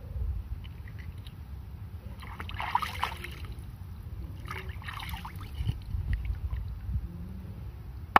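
Water splashing and sloshing twice as a needlefish is swished through shallow water to rinse it, over a steady low rumble.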